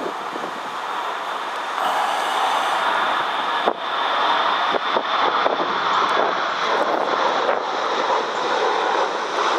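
Airplane engines running at high power as the aircraft aborts its landing and goes around, the engine noise swelling about two seconds in. Wind buffets the microphone with scattered crackles.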